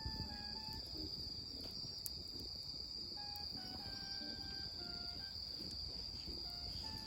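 Insects shrilling in one steady high-pitched drone, with a sparse tune of short, plain notes at changing pitches over it.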